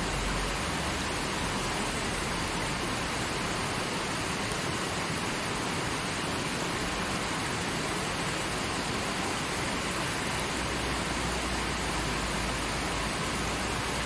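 Fast mountain river rushing over rocks: a steady, unbroken rush of water.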